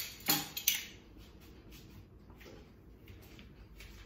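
Milk carton being picked up and handled over a mixing bowl: a few sharp clicks and taps in the first second, then faint light handling noises.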